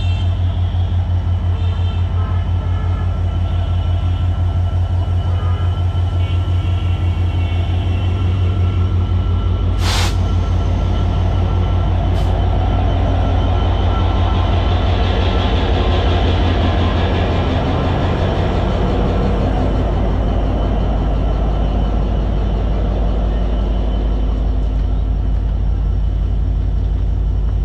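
An EMD GT42 diesel-electric locomotive's diesel engine running steadily close by: a deep, evenly pulsing rumble. A short, sharp burst about ten seconds in stands out above it.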